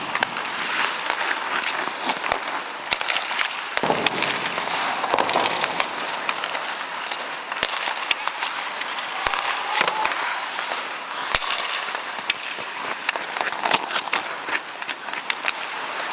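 Ice hockey skates scraping and carving across the ice, with repeated sharp clacks of sticks hitting pucks during passing drills.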